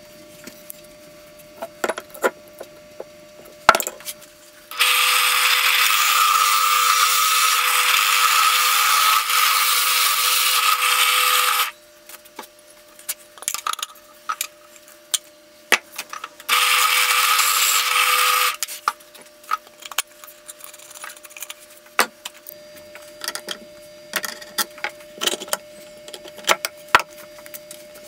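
Drill press boring into plywood with a Forstner bit: one long run of about seven seconds and a second short run of about two seconds, steady and loud while it runs. Between and around the runs come scattered clicks and knocks of tools and the workpiece being handled.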